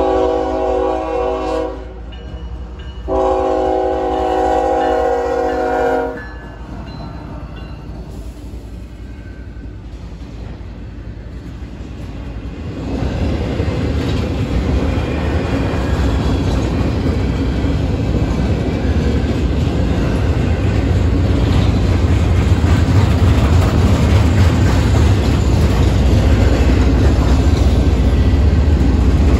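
Freight locomotive's air horn sounding for a grade crossing: a blast ending about a second and a half in, then a three-second blast. From about thirteen seconds in, the intermodal freight train passes, a loud low rumble with wheel clatter that keeps building.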